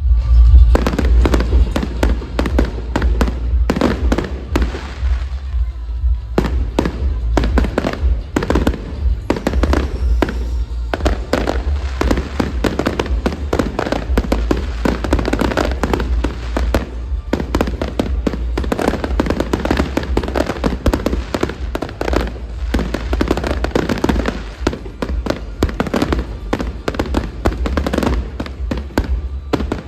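Fireworks going off in a dense, continuous barrage: rapid crackling and popping over a steady low rumble, thinning briefly about six seconds in.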